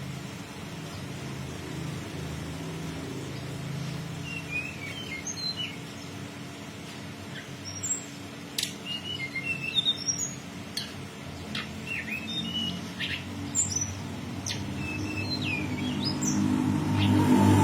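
Freshly wild-caught Sunda robin (tledekan gunung) twittering: a scattered series of short, high, sharp chirps, many sliding down in pitch, starting about four seconds in, over a steady low background rumble.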